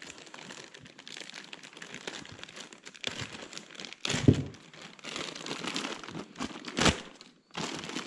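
Plastic packaging bags crinkling and rustling as hands open and handle bagged parts, with louder crackles about four and seven seconds in.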